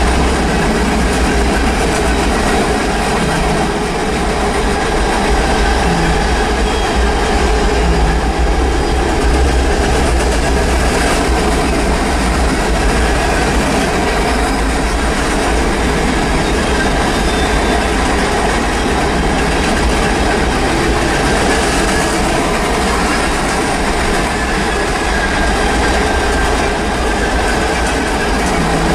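Norfolk Southern freight train passing close by: the steady noise of its cars' wheels running on the rails, even in level throughout.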